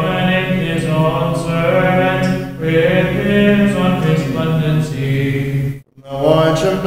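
Voices chanting Byzantine chant at vespers, a melodic line over a steady low held drone (ison). The chant breaks off briefly about six seconds in, then resumes.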